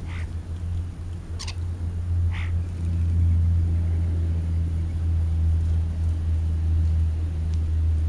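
Three short bird chirps in the first two and a half seconds, over a loud, steady low rumble.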